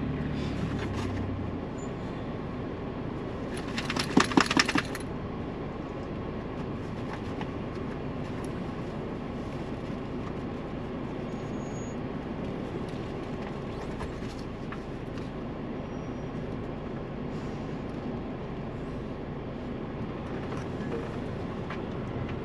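Ford Bronco crawling over a rough off-road trail, a steady low rumble of engine and tyres. About four seconds in there is a short burst of rattling clatter, the loudest sound here.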